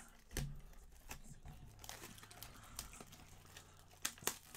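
Plastic shrink wrap being torn and crinkled off a sealed box of trading cards, with the cardboard box handled and tapped. Irregular crackles, the sharpest about half a second in and twice near the end.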